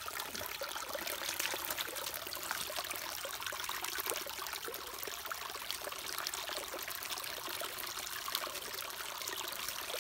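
Shallow stream trickling steadily over rocks.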